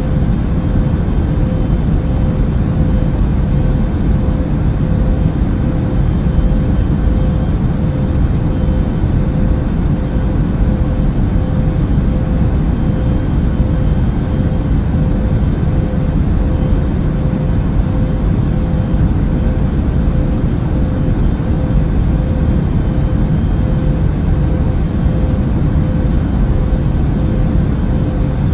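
Airbus A380 in flight: a steady, even rumble of engine and airflow noise, heaviest in the low range, with a thin steady hum running through it.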